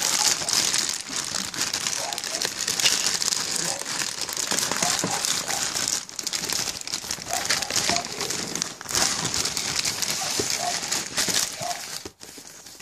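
A plastic courier mailing bag crinkling and rustling as hands fold and pull it open, with brief pauses. It dies down near the end.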